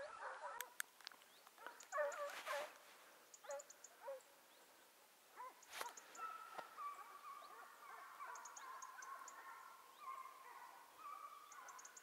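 Faint, distant hunting hounds baying on a hare's trail, giving a run of drawn-out calls that get longer from about halfway through.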